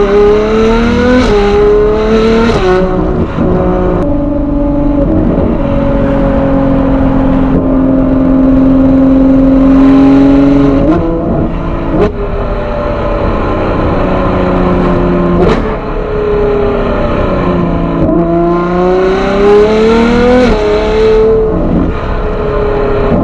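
Ferrari 812 GTS's 6.5-litre naturally aspirated V12 through a Novitec exhaust, heard from the driver's seat. It accelerates at first, its pitch climbing and dropping at two quick upshifts. Then it cruises steadily with a couple of sharp cracks at gear changes, and near the end it pulls hard again into another upshift.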